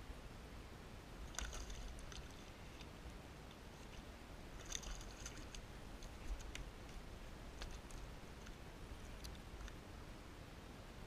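Faint low rumble with scattered light clicks and rattles of fishing tackle being handled on a kayak while a ladyfish is landed on a fly rod. The busiest rattles come about a second and a half in and again about five seconds in.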